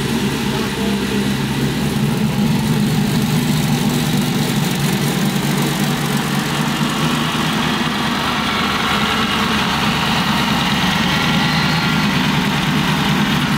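Supercharged V8 engine swapped into a Tesla Model S, idling steadily.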